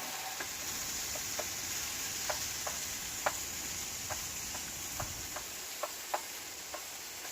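Mushrooms frying in a RidgeMonkey pan on a camping stove: a steady sizzling hiss with irregular crackles and pops of spitting fat.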